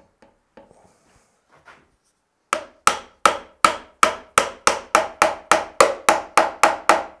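A hammer tapping the end of a new wooden handle down into the eye of a ball-peen hammer head, seating the head on the handle. After a little handling noise, about fifteen quick strikes follow, roughly three a second, each with a short ring.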